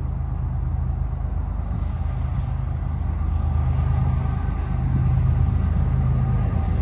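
Diesel freight locomotive approaching, its engine a steady low rumble with a droning hum that grows louder as it nears.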